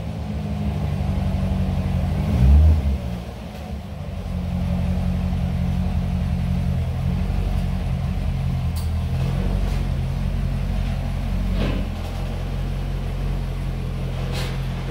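C6 Corvette's V8 idling steadily, with a short rise in revs about two and a half seconds in, then settling back to a low idle as the car creeps forward.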